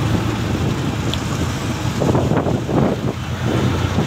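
Road noise and wind rushing past the open window of a moving vehicle, over a steady low engine hum.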